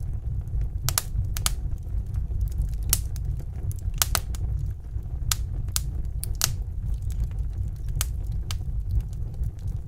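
Wood fire in a fireplace crackling: sharp, irregular pops every second or so over a steady low rumble.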